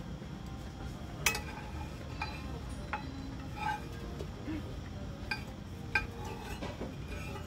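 Metal spoon and tongs clinking and scraping against a large metal pan and small bowls while food is scooped up: a string of sharp clinks a second or so apart, the loudest about a second in.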